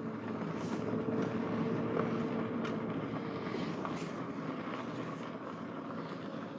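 Car driving slowly, heard from inside the cabin: a steady road and engine hum that eases off as the car slows to pull in.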